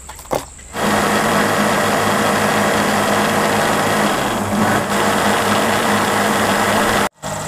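Electric blender motor running at full speed, blending cherries, milk and ice into a milkshake. It starts about a second in, with a brief dip in motor pitch about halfway, and cuts off suddenly near the end.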